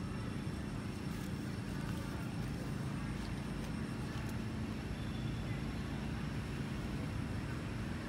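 Steady low rumble of background noise, with faint steady high tones above it and a few faint clicks.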